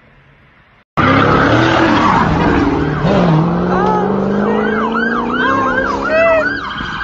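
Faint hiss, then about a second in a sudden loud car engine revving hard and held high, with tyre squeal as a car drifts through its own tyre smoke. From about four seconds in, a siren yelps rapidly up and down over the engine.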